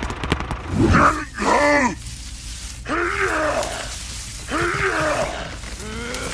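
A deep man's voice groaning and grunting with strain, four or five separate groans that each rise and fall in pitch, the last one rising near the end, over a low steady hum.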